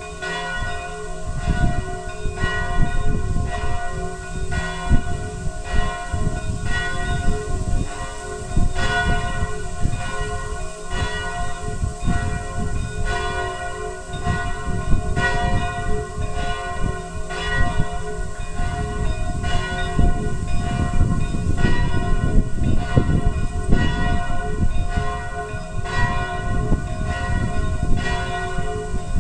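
Church bells pealing, several bells striking in overlapping succession with long ringing tones, over a steady low rumble.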